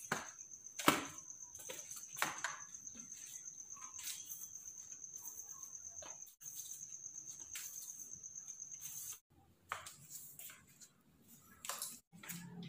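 An insect trilling steadily at a high pitch, with a few sharp clicks or knocks over it; the trill stops about nine seconds in.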